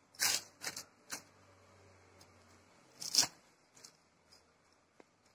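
Instant coffee powder being shaken and scraped out of a container into a plastic bowl by hand. There are a few short rustling scrapes in the first second or so, a louder pair about three seconds in, and then faint ticks.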